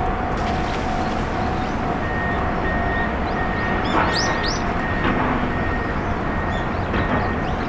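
Steady outdoor background rumble with a faint continuous tone and a quieter tone pulsing on and off from about two seconds in, and a few quick bird chirps about four seconds in.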